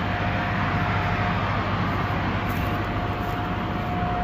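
Tractor and air seeder running steadily, a low engine hum with a thin steady whine over it.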